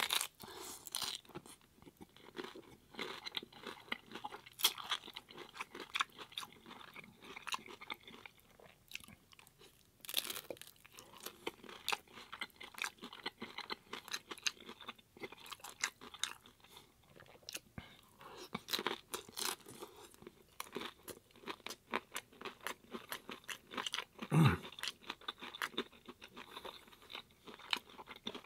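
Close-up crunching and chewing of hard-shell corn tacos: irregular crisp cracks as the shells are bitten and broken up between the teeth, with one louder low thump near the end.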